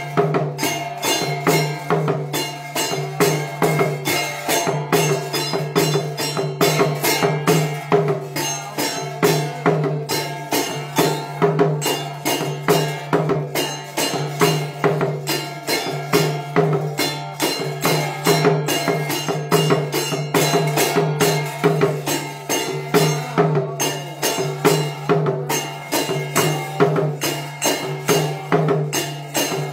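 Jingling ritual percussion struck or shaken in a steady pulse, about two to three strokes a second, over a continuous low hum.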